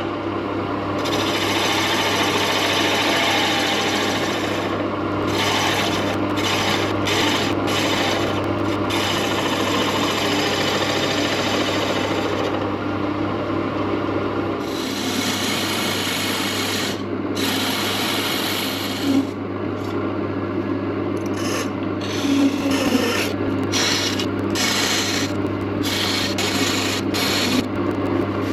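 Wood lathe running with a steady hum while the spinning wood is worked, a rubbing, rasping noise that stops and starts many times.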